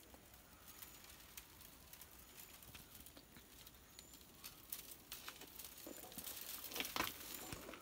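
Dry coconut-leaf midribs (ekel sticks) clicking and rustling faintly against each other as they are worked by hand into a broom, in irregular light ticks that grow a little busier in the second half.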